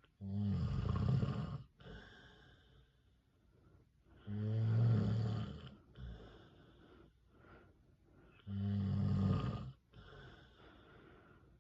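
A man snoring in his sleep: three loud snores about four seconds apart, with quieter breathing between them.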